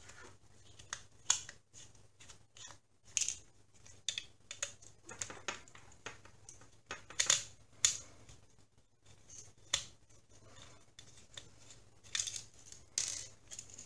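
Hands working on a plastic smoke-alarm housing and its circuit board with a small screwdriver: irregular clicks, taps and short scrapes of plastic parts, the loudest a cluster about seven seconds in and another near the end.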